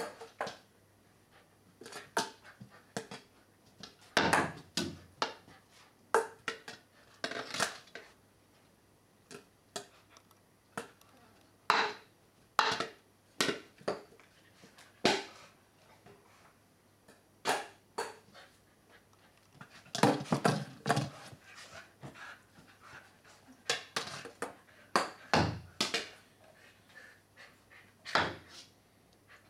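A puppy playing with a toy: irregular short knocks, clatters and scuffs, a few every couple of seconds, with a few longer, noisier bursts.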